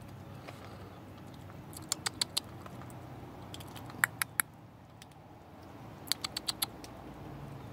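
Cats eating from a bowl, crunching their food: three short bursts of quick, sharp clicks, each of about four to six crunches, a couple of seconds apart.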